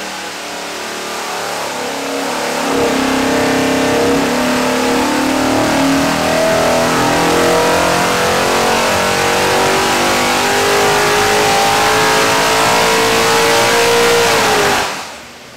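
427 cubic-inch small-block Ford V8 on an engine dynamometer making a full-throttle pull. The throttle opens about three seconds in, and the engine's pitch climbs slowly and steadily under load for about twelve seconds, then drops off sharply near the end as the pull finishes.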